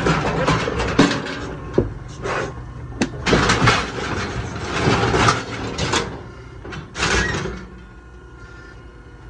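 Steel livestock chute and pen gates banging and rattling: a series of irregular metal knocks and scrapes that die down near the end.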